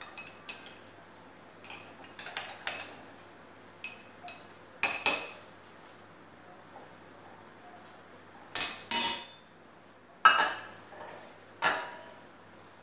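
Kitchen utensils and dishes clinking and knocking as they are handled and set down, in a series of separate sharp knocks with quiet between them, the loudest about nine seconds in.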